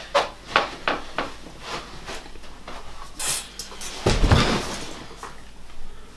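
A few light knocks and rustles, then a man falling off a metal-framed chair and landing on a carpeted floor with one heavy thud about four seconds in.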